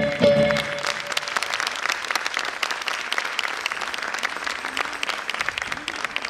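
Audience applauding, a dense steady clapping that starts as the final chord of the tarantella music cuts off less than a second in.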